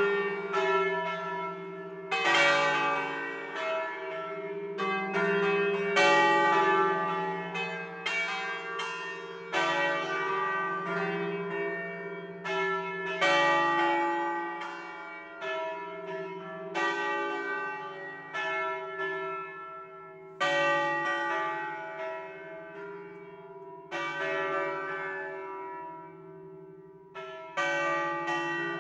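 Four smaller bells of a five-bell church peal in C, swung full circle on wheels in a distesa. Their clappers strike again and again in an uneven, overlapping stream, each strike ringing on under the next.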